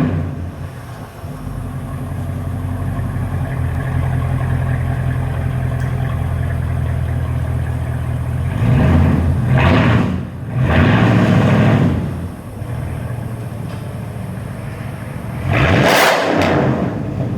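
Mercedes-Benz E 500 AMG V8 engine idling steadily, then revved in three quick blips about halfway through, settling back to idle, and revved once more near the end.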